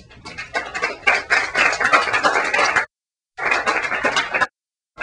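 Audience applauding, a loud, dense clatter of many hand claps. The recording drops out for about half a second roughly three seconds in and cuts off again near the end.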